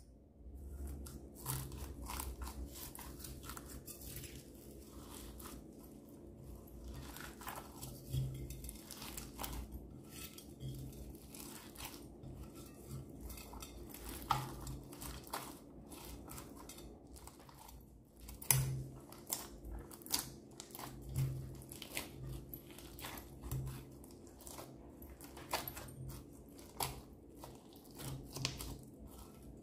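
Hands kneading and squishing slime mixed with foam beads and sequins, giving many small irregular crackles and clicks.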